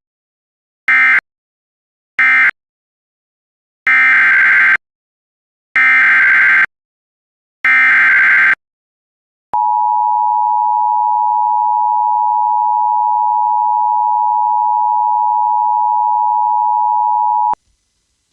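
Emergency Alert System signalling: the last two short data bursts of the previous alert's end-of-message code, then three longer screeching data bursts of the next alert's SAME header, then the steady two-tone attention signal held for about eight seconds.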